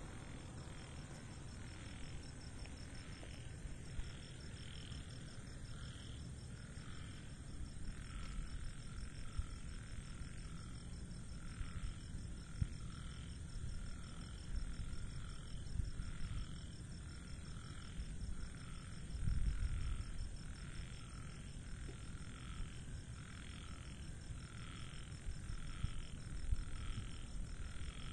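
Night chorus outdoors: a steady, high, pulsing insect trill, with a lower call repeating about once a second. A low rumble runs underneath and swells briefly about two-thirds of the way through.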